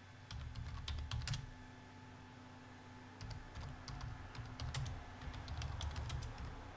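Typing on a computer keyboard: irregular runs of keystrokes, a short burst about half a second in and a longer stretch from about three seconds until near the end.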